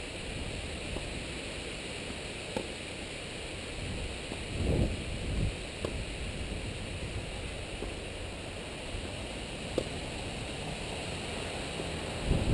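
Wind rumbling on the microphone in gusts, with a few sharp tennis-ball hits off racket strings, one of them a serve about six seconds in.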